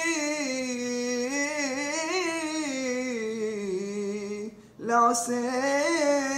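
A man's voice chanting Torah cantillation in the Constantine (Algerian Jewish) tradition: a long, wavering melismatic line drawn out on one word. He pauses for a breath about four and a half seconds in, then the chant resumes.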